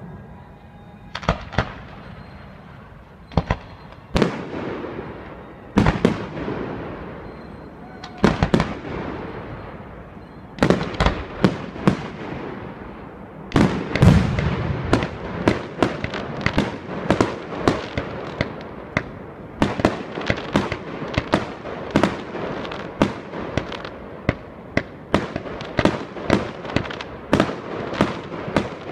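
Aerial fireworks shells bursting with sharp bangs, each trailing off in a fading rush. The bangs come a few seconds apart at first, then faster and faster until there are several a second in the second half.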